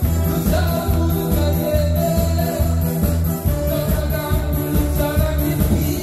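A man singing into a microphone over a loud backing track with a steady, pulsing bass beat.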